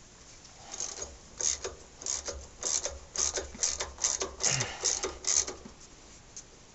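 Hand socket ratchet clicking in short back-and-forth strokes, about two a second, as it backs out a bolt that has already been cracked loose. It starts about a second in and stops about a second before the end.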